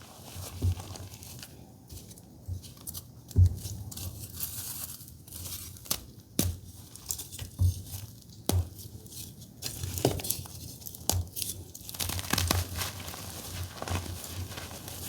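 Blue reformed gym chalk crumbling and crunching under the fingers: a run of irregular dry crackles and snaps, with occasional low thumps, the loudest about three and a half seconds in.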